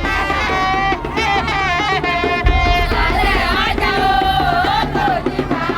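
Music with a wavering, melismatic singing voice over a steady bass line and percussion.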